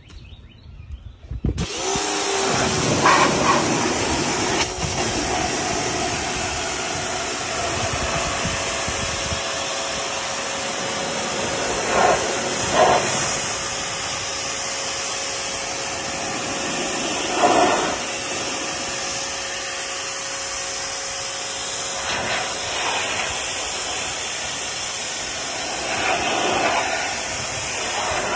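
Electric pressure washer running and spraying: a steady motor hum under a loud hiss of the water jet, starting suddenly about a second and a half in, with a few brief louder swells.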